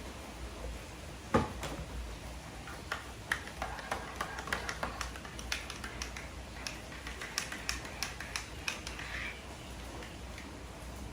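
A sharp knock about a second and a half in, then a scattered run of light clicks and taps for several seconds over a faint steady hum.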